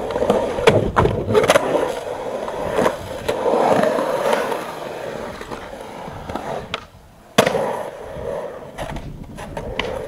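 Skateboard wheels rolling over rough concrete in a skatepark bowl, with repeated clacks and knocks from the board. The sound drops away briefly and comes back with a sharp clack about seven and a half seconds in.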